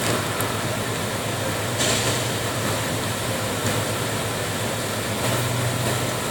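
Steady low machine hum with a broad hiss.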